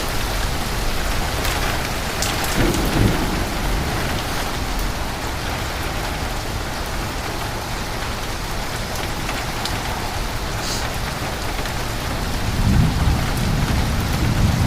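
Heavy rain pouring down in a thunderstorm, a dense steady hiss with sharp drop hits close by. A low rumble of thunder swells near the end.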